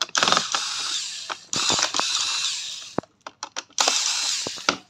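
Cordless electric screwdriver running in three short bursts, each about a second to a second and a half, backing screws out of a robot vacuum's plastic base. A few light clicks fall between the second and third bursts.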